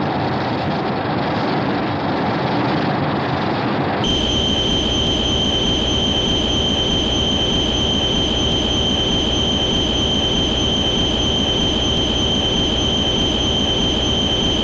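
Two movie monster or machine sound effects from the 1992–1994 Godzilla films. First comes a rough rumbling noise. About four seconds in it cuts abruptly to a steady rumbling hiss with a constant high-pitched whine running through it.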